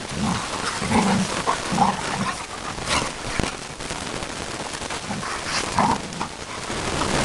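Two American bulldogs play-fighting, with a string of short growls and snarls over the scuffling of their bodies on the grass.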